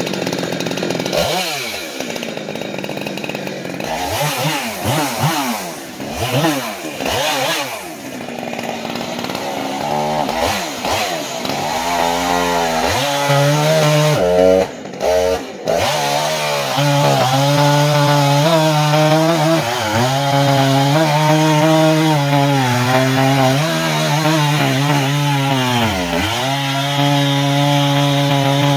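Jonsered 2186 two-stroke chainsaw with a 32-inch bar cutting through a large log. For about the first ten seconds the revs rise and fall unevenly; after that the engine holds a steady high pitch under load in the cut, sagging briefly about 26 seconds in. The sound drops out twice for a moment around fifteen seconds in.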